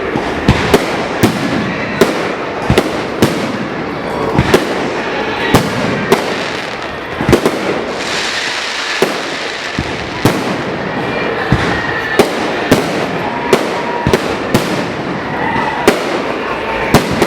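Fireworks display: a rapid, uneven run of sharp bangs from bursting shells, about one to two a second, over a steady crackling hiss.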